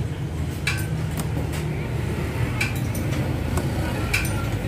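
Steady low rumble of background noise with several sharp metallic clinks, spaced irregularly about a second apart.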